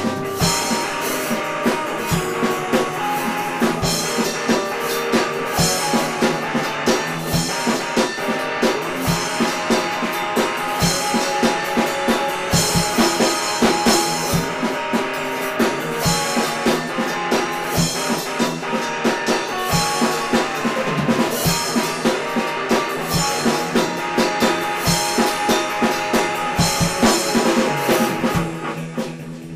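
Electric guitar and drum kit playing an instrumental piece together, with a steady beat of bass drum and cymbals under the guitar. Near the end the music drops in level as the drums fall away.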